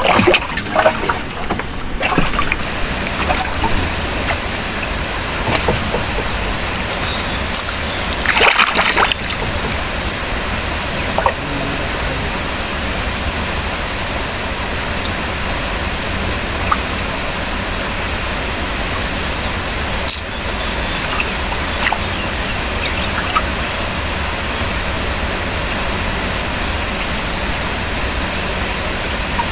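Steady rushing of water and wind with sloshing, and a thin, steady high-pitched whine that sets in about three seconds in. A brief louder splash about eight to nine seconds in.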